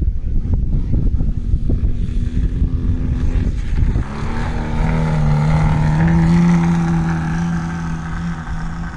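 Radio-controlled aerobatic model airplane's engine and propeller at high power during takeoff and a steep climb into a vertical hover, rough and rumbling at first, then a steady, louder drone from about four seconds in.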